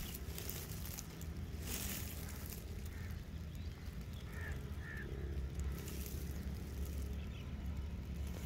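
Outdoor field ambience: a low steady rumble with two short, faint bird calls about four and five seconds in.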